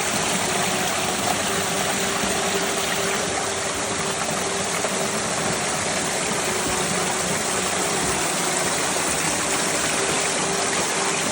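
River water rushing steadily, an even hiss that runs on without a break.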